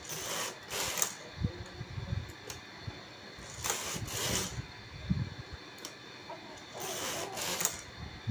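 Carriage of a Brother single-bed knitting machine pushed by hand across the needle bed. It makes three passes, each a rushing slide about a second long, with light clicks in between.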